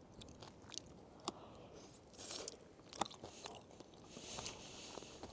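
Faint, close chewing of crunchy, not fully rehydrated freeze-dried meat stew, with a few sharp clicks.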